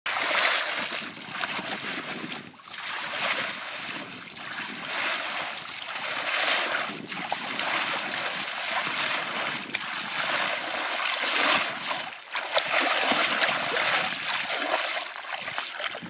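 Water splashing over and over, about once a second, as it is scooped and thrown by hand out of a shallow muddy ditch to drain it.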